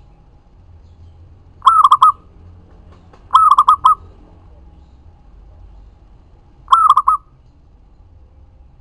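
Zebra dove (perkutut) cooing: three short phrases, each of three or four quick rolling coos, with pauses of a second or more between them.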